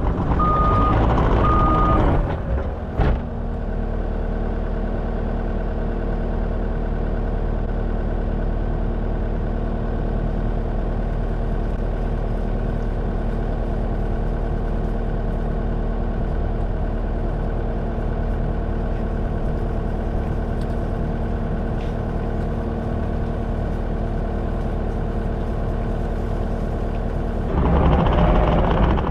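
Skid steer's engine running, with its backup alarm beeping for the first two seconds. After that the engine holds a steady, even hum, and it grows louder again near the end.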